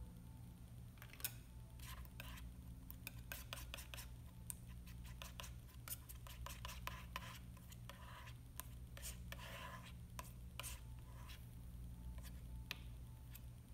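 Metal palette knife mixing and spreading oil paint: a run of small taps and clicks with scraping strokes, over a faint low steady hum.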